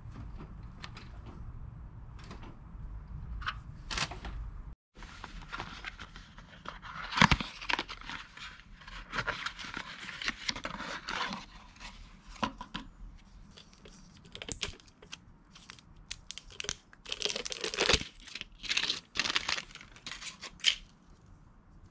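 A wrench clicking a few times on the oil pan drain plug, then, after a cut, a cardboard oil filter box being torn open and the filter pulled out, with crinkling and rustling of packaging and sharp handling clicks.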